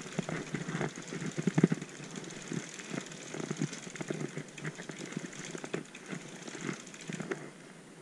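Bicycle crank turned backwards by hand with a pedal wrench on the left pedal to thread it into the crank arm: rapid, uneven ratcheting clicks of the rear freewheel and chain, with small metallic clinks from the wrench. The clicking stops shortly before the end.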